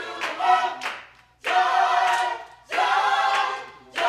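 Gospel choir singing a cappella in held chords, in phrases about a second long with short breaths between them.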